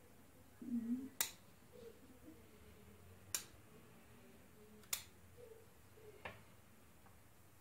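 Bonsai scissors snipping thin twigs off a Chinese elm: three sharp snips a second or two apart, then a fainter one near the end.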